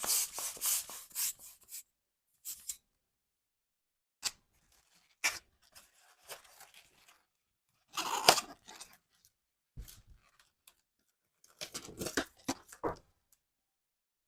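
Latex balloons being handled, stretched and tied: short bursts of rubber rubbing and squeaking in several separate clusters with silent gaps between them.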